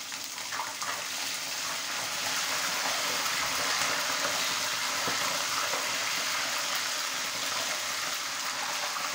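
Hot oil sizzling in a wok as green chillies and curry leaves fry among golden-brown onions for a tadka (baghar), stirred with a spoon. A steady hiss that builds over the first couple of seconds and then holds.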